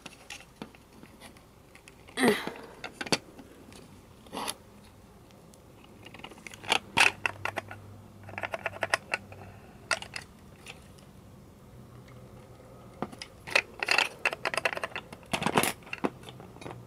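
Scattered clicks, taps and light scrapes of a die-cast toy truck's plastic chassis, metal axle and plastic wheels being handled and pressed together, in short irregular clusters.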